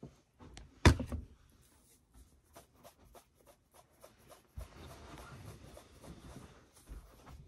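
An aerosol can of hair mousse set down with a single sharp thump about a second in, followed by light handling clicks. From a little past the middle, a soft steady rustle of hands rubbing mousse foam between the palms.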